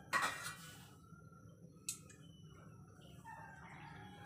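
Olive oil poured from a glass bottle into a frying pan: a brief noisy splash just after the start, then a single sharp click about two seconds in, over a low steady hum.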